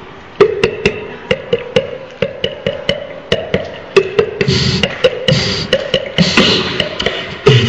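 Live beatboxing: a quick, even rhythm of sharp mouth clicks with a woody pop, about four a second, joined about four and a half seconds in by deep bass kick sounds.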